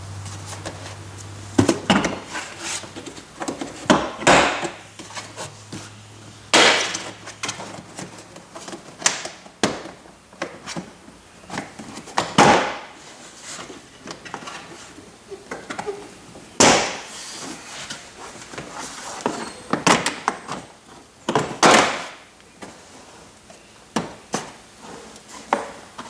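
Honda Odyssey's plastic rear quarter trim panel being pulled off its retaining clips: irregular sharp snaps and knocks as the clips pop loose from the body, a dozen or so spread over the stretch.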